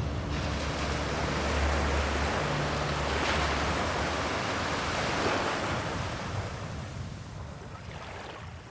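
Ocean surf washing in and out, with a low rumble in the first couple of seconds; the sound swells a little past the middle and then fades away over the last few seconds.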